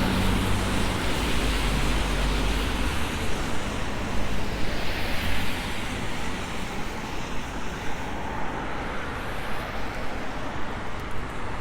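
Road traffic: a motor vehicle's engine hum passes in the first few seconds, then a steady wash of tyre and traffic noise, mixed with wind buffeting a lapel microphone.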